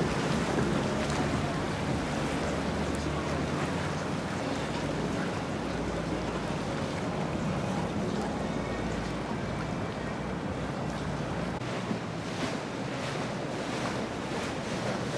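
Outboard motors of passing boats running, with water washing and splashing against the hulls and wind on the microphone. The low engine hum fades about twelve seconds in, and short splashes stand out after it.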